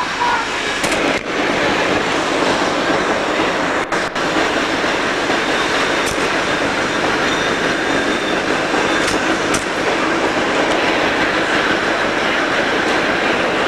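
Steady rolling rumble and clatter of a San Francisco cable car riding along its street rails.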